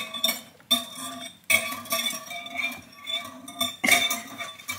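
Wire balloon whisk clinking and scraping against a white ceramic bowl as milk and egg are whisked. Four sharper knocks, about a second apart at first and the last near the end, each leave the bowl ringing.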